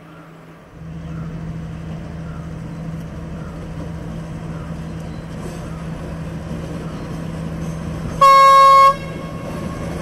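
Diesel passenger train running steadily, its engine drone coming in about a second in and slowly growing louder, then one short, loud horn blast near the end.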